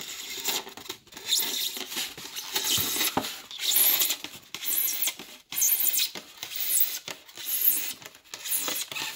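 Utility knife blade cutting a shallow groove into a styrofoam cooler lid: a run of rough, scratchy cutting strokes, about one a second, as the blade is drawn through the foam without going all the way through.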